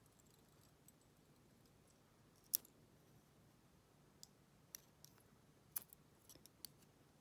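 Small sharp metal clicks as pins are taken out of the chambers of a Federal PL90PE padlock core and set down: one loud click about two and a half seconds in, then a run of lighter clicks in the second half.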